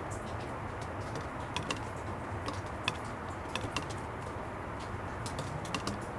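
Water drops falling irregularly onto plastic, a sharp tick every fraction of a second, over the steady low rumble of distant traffic.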